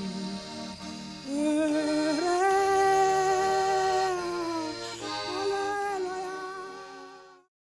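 Music: a slow melody of long held notes, gliding up into a note that is held for about two seconds, then a shorter phrase, fading out and stopping shortly before the end.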